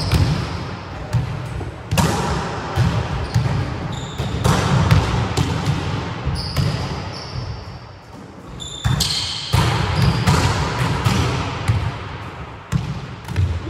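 Volleyballs being hit and bouncing on a wooden sports-hall floor: repeated sharp smacks, about one a second, ringing on in the hall, with a few short high squeaks of shoes on the floor.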